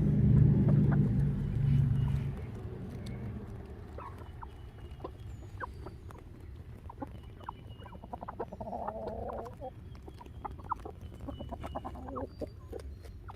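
Chickens clucking in short, scattered calls, with a low rumble during the first two seconds.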